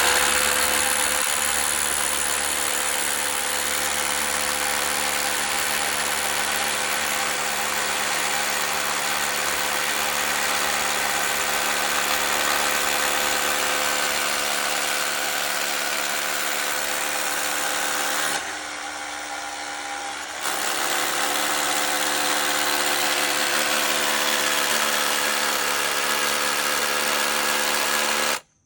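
Rotary hammer drilling a 7/8-inch hole into concrete, its motor running steadily under load. It eases off briefly about two-thirds of the way through, then stops abruptly near the end.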